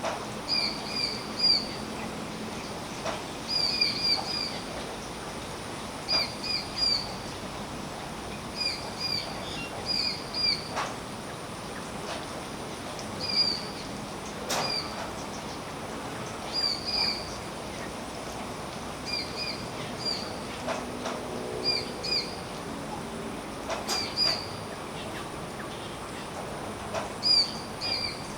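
Steady rain falling on a tree, with a bird calling over it in quick runs of two to four high chirps every second or two, and a few sharp drip ticks.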